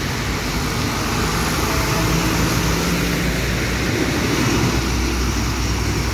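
Auto-rickshaw engine idling steadily, with street traffic around it.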